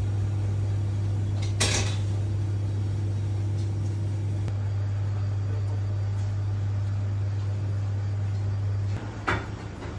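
A steady low mechanical hum, with a sharp click about two seconds in and another near the end, just after the hum drops away.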